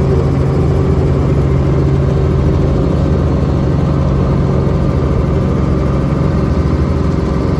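Small helicopter's engine and rotor running steadily, heard from inside the cabin as a loud, even drone with a low hum.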